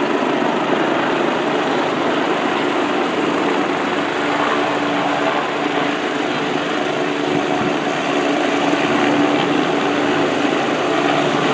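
Medical helicopter's engine and rotor running steadily with a low drone as it comes down to land.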